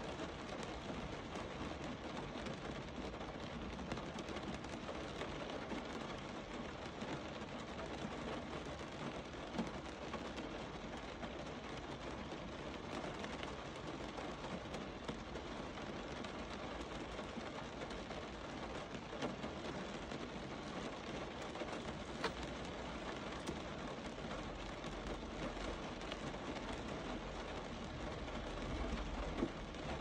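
Steady rain falling, with a few faint drips. A low rumble of distant thunder builds from near the end.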